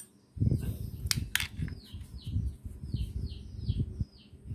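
A small bird calling over and over, a run of short falling chirps from about a second and a half in. Two sharp clicks just after the first second, over an uneven low rumble.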